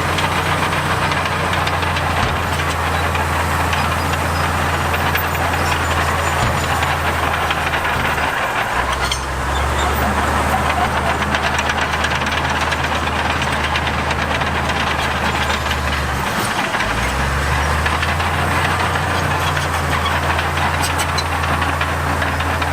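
Diesel engine of heavy earthmoving equipment running steadily under load. Its low drone dips briefly twice, about a third and two-thirds of the way through.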